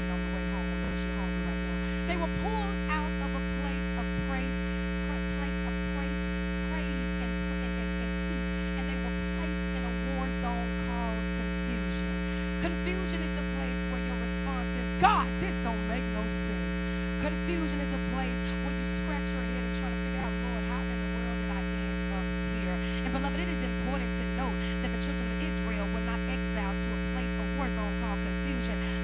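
Steady electrical mains hum with a dense stack of overtones, carried through the sound system or recording line. One sharp click about halfway through.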